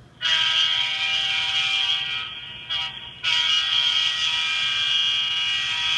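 RadioShack electronic kit's small speaker sounding a steady, buzzy electronic tone, like an alarm buzzer. It starts a moment in and briefly thins out around the middle.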